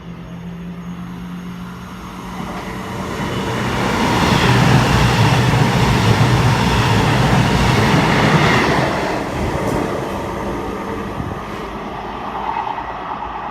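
CrossCountry diesel passenger train passing through the station at speed without stopping: its engine and wheels on the rails rise to a loud rush about four seconds in, hold for several seconds, then fade away.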